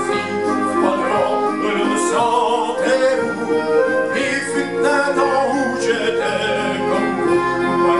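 Man singing a French chanson to his own accompaniment on a Roland digital button accordion, held chords and melody notes under the voice.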